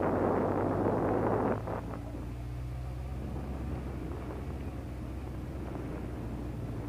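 Honda CBF 600's inline-four engine running steadily at low revs as the motorcycle rolls slowly along a dirt lane. A loud rush of wind noise on the helmet-mounted microphone drops away about a second and a half in, leaving the low engine hum.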